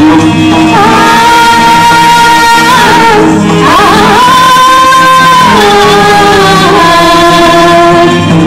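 Nepali folk dance music with singing: a melody of long held notes that slide between pitches over a steady low drone, with a short pause in the melody about three seconds in.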